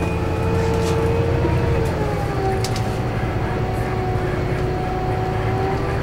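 Scania K320UB bus heard from inside the saloon while driving: a low engine drone with a steady howl from the ZF Ecomat automatic gearbox. The howl drops in pitch about two seconds in and then holds. A few light rattles from the bus interior.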